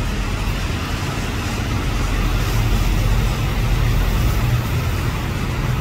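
City street traffic: a steady low engine rumble of passing vehicles, swelling slightly in the middle.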